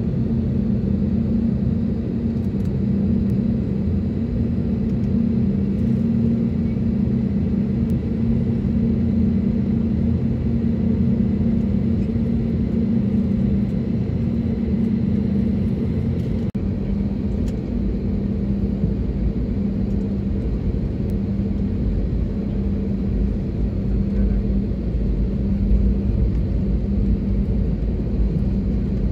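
Airliner cabin noise while taxiing: a steady jet engine drone with a low rumble, heard from inside the cabin.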